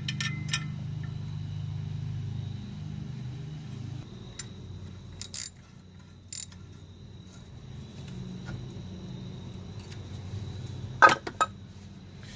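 Scattered metallic clicks and clinks of hand tools on brake parts as the 5 mm hex caliper holder pin is fitted back in, the sharpest pair near the end, over a steady low hum.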